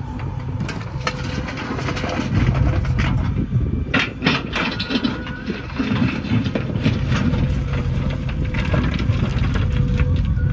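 Heavy machine engine running steadily, with a burst of clattering knocks about four seconds in.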